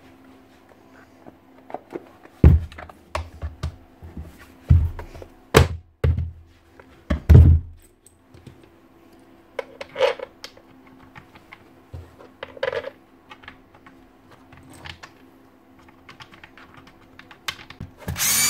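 Red plastic motor cover of a Hilti TE905 demolition hammer being handled and pressed onto the body: a string of loud knocks and thuds, then lighter clicks and taps. Right at the end a cordless screwdriver whirs up to drive the cover screws.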